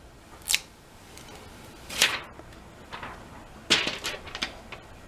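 Thin clear protective plastic film being peeled off a laptop's underside, giving a few short, sharp swishes and crackles of the sheet, the loudest about two seconds in and another near the end.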